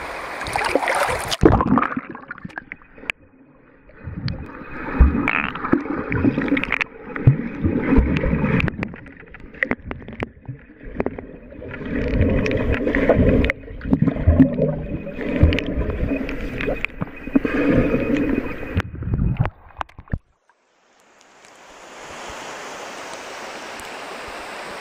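Muffled underwater sound from a camera held below the surface of a creek: gurgling and bubbling with irregular knocks and thumps, all dull and without any high sound. About twenty seconds in it drops out briefly as the camera surfaces, then a steady even hiss of open-air water ambience takes over.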